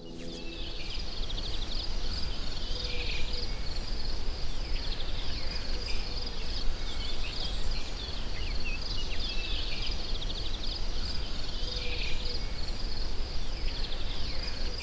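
Woodland ambience: songbirds singing short trilled phrases every couple of seconds over a steady high hiss, with a steady low rumble underneath.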